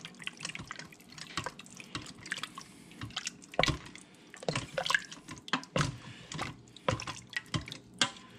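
Wooden spoon stirring thick cream soup, broth and raw chicken pieces in a stainless-steel Instant Pot inner pot: wet sloshing and squelching with irregular light knocks of the spoon against the pot.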